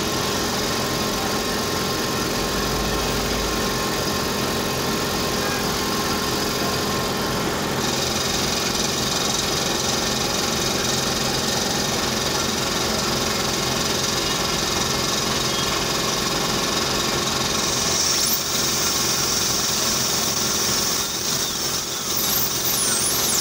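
Steady mechanical hum of dental clinic equipment during a root canal procedure. About three-quarters of the way through, a high-pitched dental drill whine joins in, its pitch wavering near the end as the drill works.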